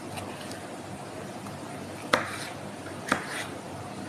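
Knife cutting a green bell pepper on a cutting board: two sharp knocks about a second apart as the blade strikes the board, over a steady low hum.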